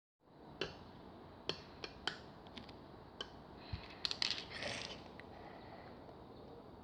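Sharp clicks and taps from handling a slime and its plastic container: single clicks every second or so at first, then a quick cluster of clicks and a short crackle about four seconds in, over faint room hiss.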